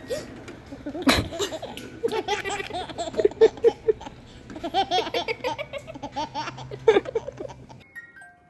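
Baby laughing in two long bouts of quick, rhythmic giggles, with a sharp click about a second in.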